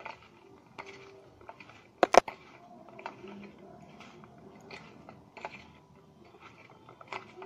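Cut okra being tossed by hand with gram flour and spices on a steel plate: soft, irregular rustling and squishing, with two sharp clicks about two seconds in.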